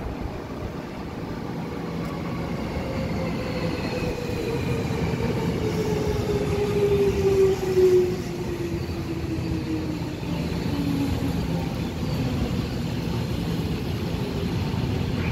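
Electric commuter train pulling into the platform and braking: a motor whine falls steadily in pitch over rumbling wheels. It is loudest about eight seconds in as the cars pass close by.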